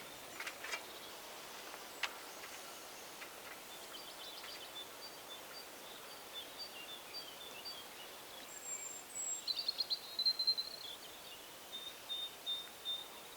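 Birds chirping: a run of short high notes, a thin whistle, then a busier burst of chirps past the middle, with a few faint clicks near the start.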